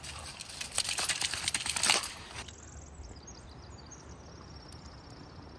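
Crunching footsteps on loose river gravel, a quick run of short grinding clicks for about two and a half seconds. After that it gives way to a quieter outdoor hiss.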